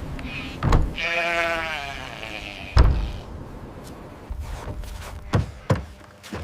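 A sheep bleating once, a wavering call lasting about a second that starts about a second in. Several short thumps fall around it, the loudest just after the bleat.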